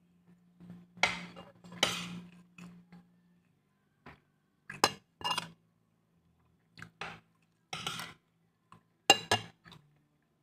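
Plates knocking and clinking as food is picked off them by hand: a scattering of short, separate clinks and clatters, the sharpest near the middle and near the end.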